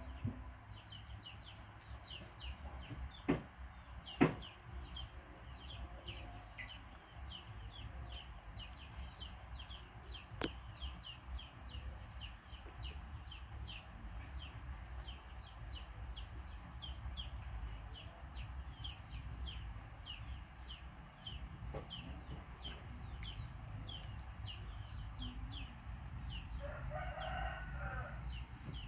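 A bird peeping steadily: a long run of short, falling high peeps, about three a second, over a low background rumble. A few sharp clicks come in the first half, and a short, lower call near the end.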